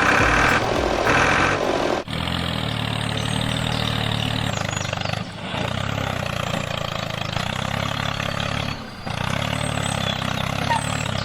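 A vehicle engine running steadily, louder for the first two seconds, with brief dips about two, five and nine seconds in.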